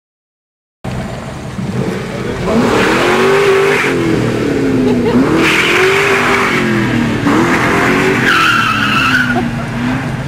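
Car doing a burnout: the engine revs up and down over and over while the tires squeal in three bursts. The sound cuts in abruptly just under a second in.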